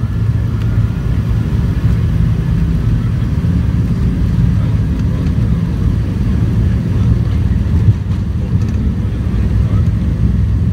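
Inside the cabin of an MD-90 on its takeoff roll: a steady low rumble from its rear-mounted IAE V2500 engines at takeoff thrust and from the wheels running on the runway.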